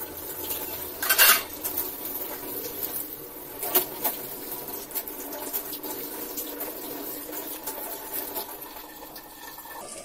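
Dishes being washed at a stainless-steel sink: ceramic plates and steel dishes clinking and clattering against each other and the sink. There is a loud clatter about a second in and another near four seconds.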